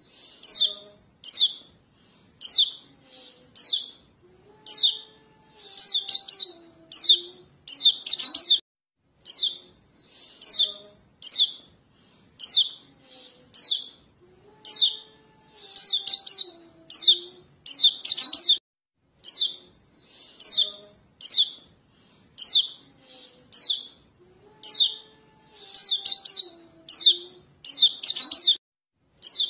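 Recorded begging calls of young white-eyes (kecial kuning) calling for their parents, a lure call used to draw adult white-eyes: rapid short high chirps, several a second, with a faint lower wavering tone under some of them. The sequence repeats as a loop about every ten seconds.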